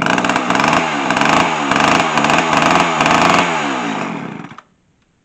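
Small two-stroke chainsaw running, its engine speed rising and falling over and over, then dying abruptly about four and a half seconds in. The owner suspects a weak ignition coil.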